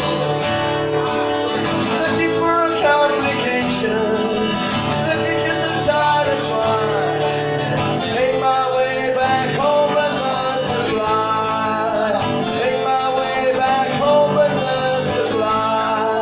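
A man singing a song to his own acoustic guitar, played live, with no break.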